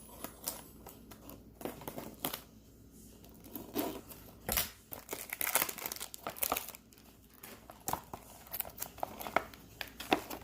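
Perfume-box packaging crinkling and tearing in irregular bursts as it is pulled open by hand, busiest and loudest about halfway through; the wrapping is stubborn and won't come off easily.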